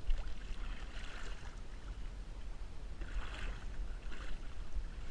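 Sea water splashing and sloshing at a boat's side as a hooked fish splashes at the surface, swelling louder twice, over a steady low rumble.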